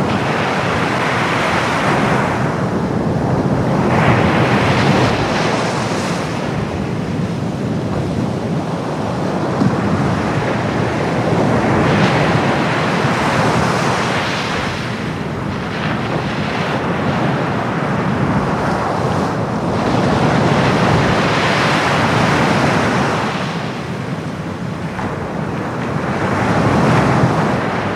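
Sea surf breaking on a beach: a continuous rush of waves that swells and eases every few seconds.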